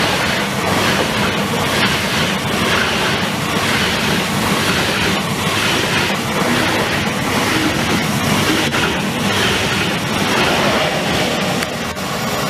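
German ICE high-speed train passing close by at speed: a loud, steady rush of wheel and air noise with a regular pulsing as the carriages go by.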